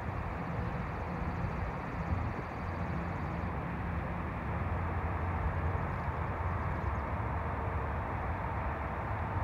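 Steady outdoor background noise: an uneven low rumble under an even hiss, with no distinct sounds standing out.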